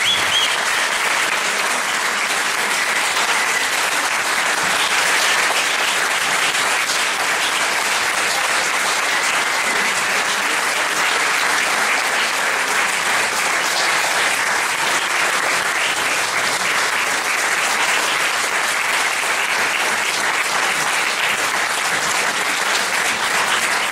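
Audience applauding in a long, steady, unbroken round of clapping.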